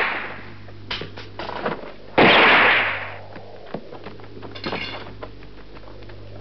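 Gunshots from a film soundtrack: the fading end of one shot, then a second loud shot about two seconds in that rings on for about a second, with a few light knocks in between.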